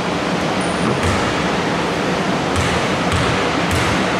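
Steady hiss of the hall's background noise, with a few dull thuds of a basketball bounced on the wooden court, the last three about half a second apart, as a player readies a free throw.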